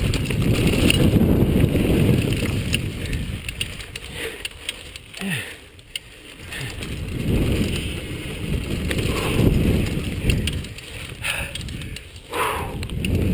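Chumba VF2 mountain bike riding fast down a rough dirt singletrack: wind rushing over the microphone and the bike's tyres and frame rattling over bumps and roots. It swells loud twice as speed picks up and eases off between.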